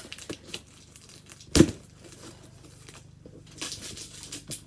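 Rustling and crinkling of a cardboard shipping box and its packaging being handled, with small clicks and one sharp knock about a second and a half in.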